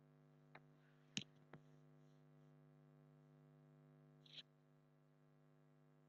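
Near silence with a steady low electrical hum, broken by four short faint clicks of a computer mouse, the sharpest about a second in and the last about four seconds in.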